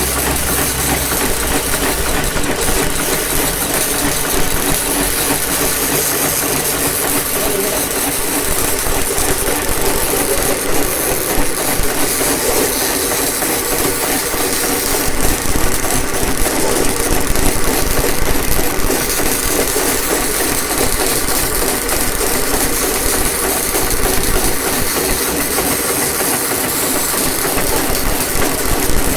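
A machine running steadily, with a constant hiss and crackle over it and no pauses.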